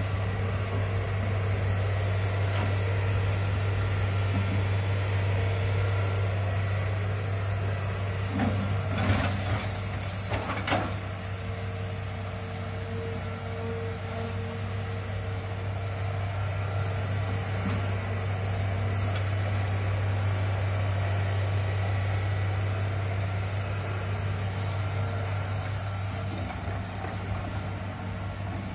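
Tracked hydraulic excavator's diesel engine running steadily under load as it digs a ditch, with a couple of sharp knocks about a third of the way in.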